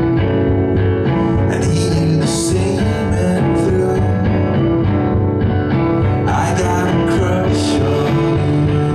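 Live indie rock band playing: a hollow-body electric guitar over a drum kit, with cymbal crashes about two seconds in and again near the end.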